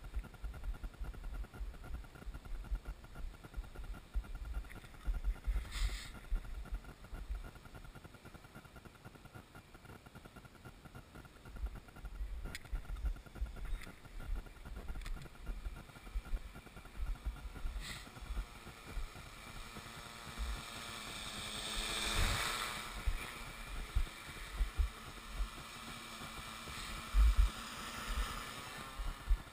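Y6 coaxial hexacopter's six electric motors and propellers buzzing in flight. The sound is faint at first, then swells into a close pass about two-thirds of the way through, its pitch wavering up and down before it fades. Gusts of wind thump on the microphone, with a few sharp clicks.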